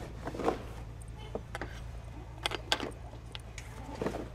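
Metal clicks and clinks of a halyard shackle being worked against a mainsail's metal headboard while the sailcloth is handled, a few sharp clicks with the loudest two in quick succession near the middle, over a steady low hum.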